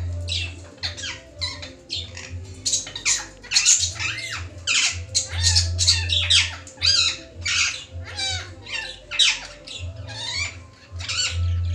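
Rose-ringed parakeet squawking, a harsh, rapid string of loud calls two or three a second. Underneath is quieter background music with a low bass throb.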